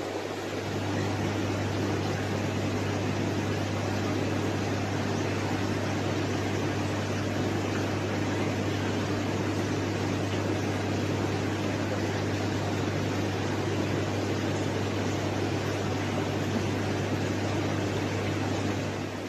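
Aquarium air pump running with a steady low hum, under an even hiss of air bubbling through sponge filters.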